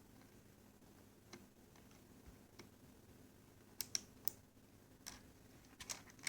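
Keyboard key switches being pressed by hand: a couple of faint clicks, then a quicker run of sharper, louder clicks in the second half.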